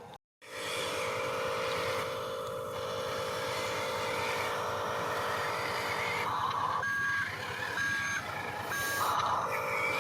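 Radio-controlled construction model running with a steady electric hum, with three short beeps about a second apart near the end, like a reversing alarm. The sound cuts out briefly just after the start.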